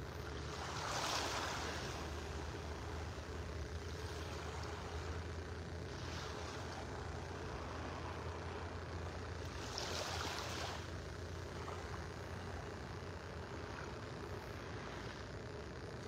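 Small waves lapping onto a sandy shoreline, with three soft washes a few seconds apart, over a steady low rumble.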